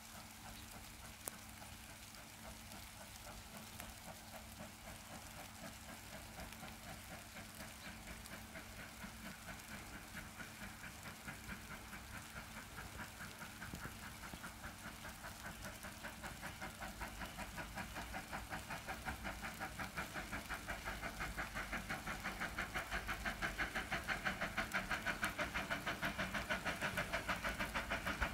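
Bavarian S 3/6 four-cylinder compound steam locomotive working a train, its exhaust beats in a quick, even rhythm growing steadily louder as it approaches.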